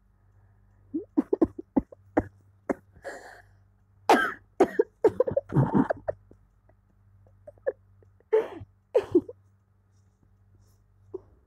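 A run of short coughs: a few sharp ones about a second in, a loud cluster around four to six seconds in, and two more near the end.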